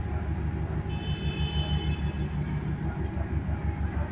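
A large engine running with a low rumble that pulses several times a second. A brief high, steady tone sounds for about a second, starting about a second in.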